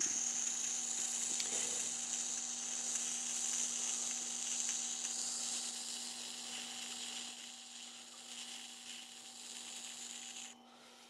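Steel shaft end of a 3D-printer extruder drive gear held against the spinning stone of an electric wet grinder: a steady high grinding hiss over the motor's low hum. The shaft is being ground down about 1 mm so it no longer protrudes past its bearing. Near the end the hiss stops suddenly as the part comes off the stone, and the motor hum runs on.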